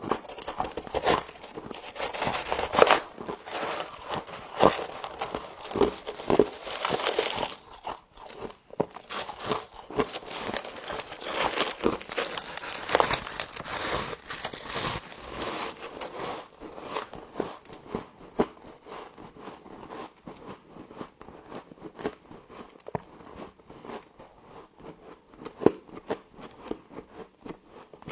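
A person biting into and chewing humidifier frost, a dense run of crunchy, crackling bites. The crunching is loudest and thickest for the first half, then eases to lighter, sparser chewing crunches.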